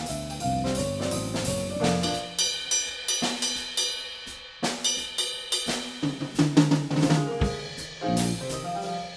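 Small jazz combo playing live, electric guitar and keyboards with a drum kit, the drums to the fore with frequent sharp hits.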